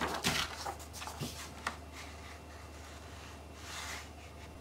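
Printer paper rustling as a sheet is handled and slid into a printer's paper tray, with a couple of light clicks between one and two seconds in.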